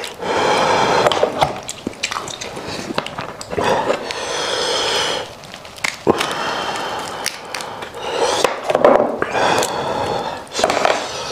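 Close-miked eating: wet smacking, slurping and sucking as meat is pulled from a boiled goat head by hand, with sharp snaps as the head is broken apart.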